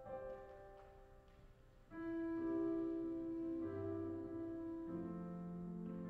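Keyboard playing slow, held chords as the introduction to a worship song. About two seconds in the chord changes and grows louder, and a low note joins near the end.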